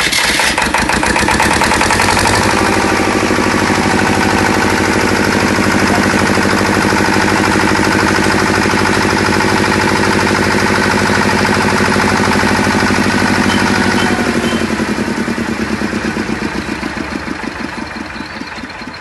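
Freshly started water-cooled diesel engine of a 20 kVA generator set running. It is rough for the first couple of seconds, then settles into a steady even run. It grows gradually quieter over the last few seconds.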